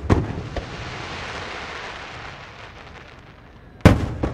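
Aerial firework shells bursting: a boom right at the start, then a long dense crackling hiss of burning stars that slowly fades, and two more loud bangs near the end.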